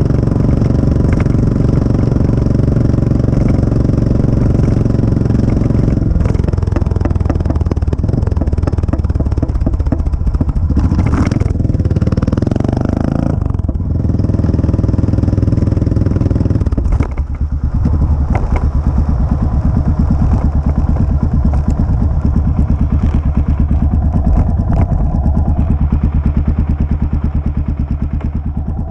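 CCM DS 644 big single-cylinder motorcycle exhaust running. It is steady for the first six seconds, then the engine speed changes, rising and falling around the middle. From about two-thirds of the way in it settles into a lower, pulsing beat that fades near the end.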